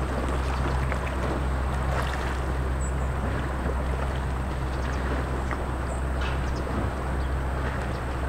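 Steady deep hum of large machinery, holding several fixed low tones, with scattered faint clicks over it.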